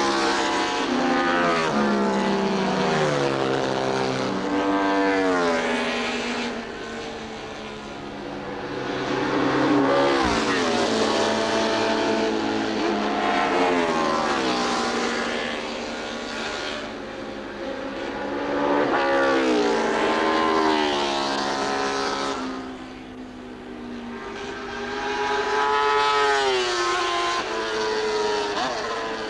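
Honda RC166 249cc six-cylinder Grand Prix racing motorcycle at racing revs. Its exhaust note climbs in pitch through the gears and drops back at each gear change, swelling loud and fading several times as the bike laps the circuit.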